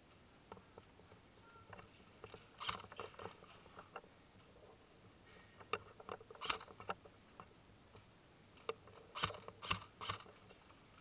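Irregular sharp clicks and short clattering rattles, loudest in three quick rattles about half a second apart near the end.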